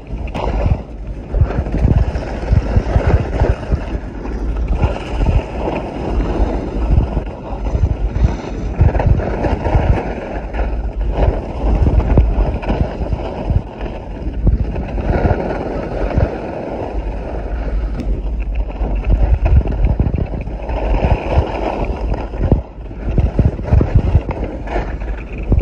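Wind rushing and buffeting the microphone of a phone sealed in a waterproof pack during a downhill ski run, with skis hissing over the snow. The rush swells and fades unevenly.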